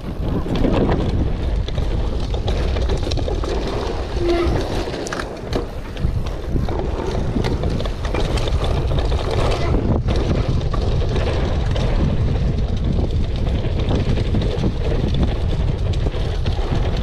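Mountain bike descending a slippery, rain-soaked dirt trail: a steady rumble of wind and tyres on the camera's microphone with many small rattles from the bike, and a short squeal about four seconds in.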